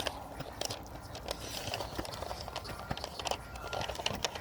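Scattered light clicks and taps from objects being handled, over a low steady background.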